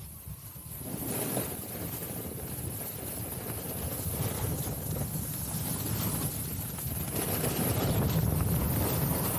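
Wind buffeting the microphone at riding speed, with the hiss of a snowboard sliding and scraping over groomed snow. It is quieter for the first second, then builds and holds steady as the board picks up speed downhill.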